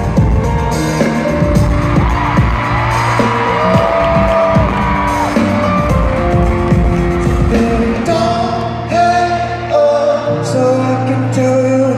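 Live pop band with a male lead singer, recorded from among the audience in a large arena: long held sung notes over keyboards, guitar and drums. The lowest bass drops away about eight seconds in, leaving a lighter accompaniment under the voice.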